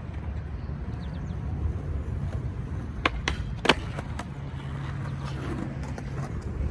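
Skateboard wheels rolling on concrete, with a few sharp clacks of the board around the middle.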